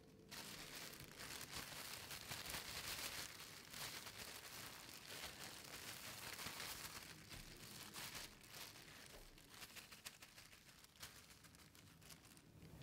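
Thin plastic bag crinkling and rustling as it is handled and shaken with a donut and granulated sugar inside. The crinkling is quiet and continuous and dies down near the end.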